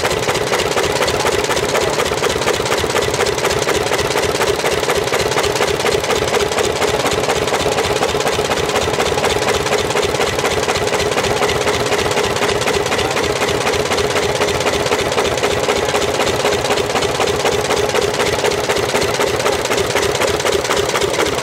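Ford Model T cutaway engine turning over, its exposed valves, camshaft and gears making a fast, steady mechanical clatter over a steady hum.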